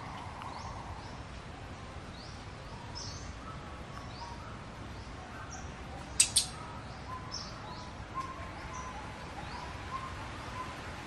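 Birds chirping over and over in the background with steady outdoor hiss, and two sharp clicks in quick succession a little past halfway.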